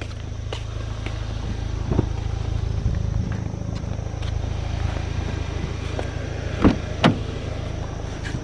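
Car engine idling, a steady low rumble that grows a little louder over the first two seconds. Three short thumps break through: one about two seconds in and two close together near the end.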